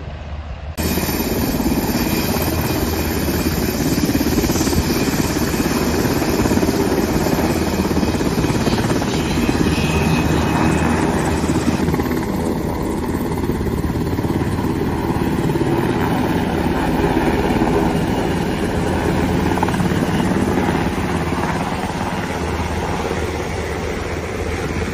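Helicopters running loud and steady, a dense rotor and turbine noise that cuts in abruptly about a second in. About twelve seconds in it turns duller, with less hiss, as the sound shifts to helicopters close by at a helipad.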